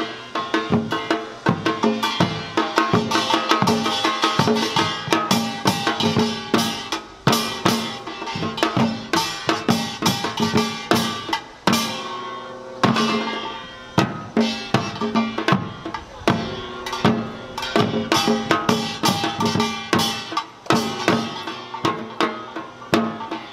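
Korean samulnori percussion quartet playing a fast, dense rhythm. The kkwaenggwari hand gong clangs over janggu hourglass drums and a buk barrel drum, with the jing gong ringing underneath.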